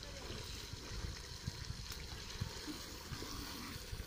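Red onion, tomato and chilli masala sizzling and bubbling in an aluminium pot as ground boiled dal is stirred into it, a steady hiss with faint crackling.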